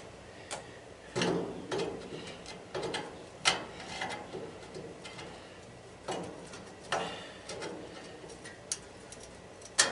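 Scattered metal clicks and short scrapes of hand tools working on a sheet-metal housing, with a few louder knocks at irregular moments, as a fastener is worked that does not want to turn.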